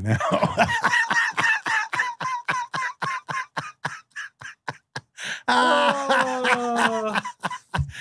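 A man laughing hard: a fast run of short, breathy, high-pitched laugh pulses, about five a second, then a longer high squeal of laughter that falls in pitch near the end.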